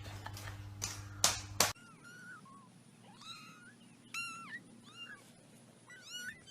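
A cat meowing: about seven short, high-pitched meows, each rising and falling, spread over the last four seconds. Before them come a few sharp clicks.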